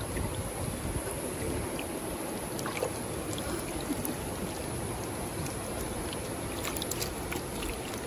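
Creek water running steadily, an even rushing sound, with a few faint ticks scattered through it.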